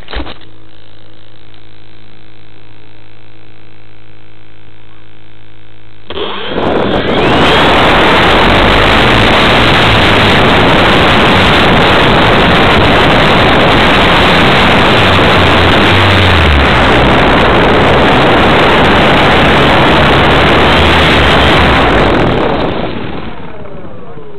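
RC model aircraft's motor and propeller heard through its onboard camera: a faint steady hum, then about six seconds in the motor runs up to a loud, steady rushing noise that holds for about sixteen seconds. Near the end it winds down, its pitch falling.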